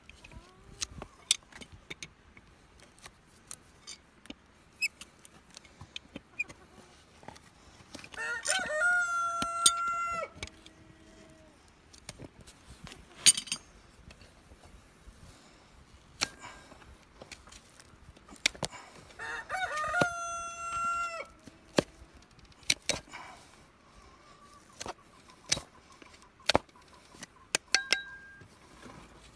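A rooster crows twice, each a long call of about two seconds, some eleven seconds apart. Between and around the crows come scattered sharp clicks and snaps of farrier's tools cutting at a horse's hoof, the loudest a snap about midway.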